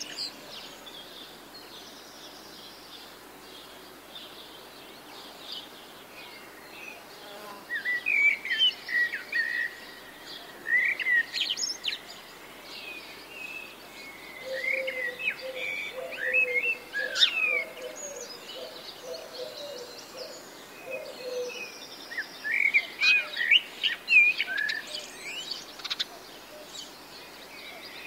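Small birds chirping and singing in bursts of a few seconds at a time, with a lower wavering call running through the middle, over a faint steady outdoor hiss.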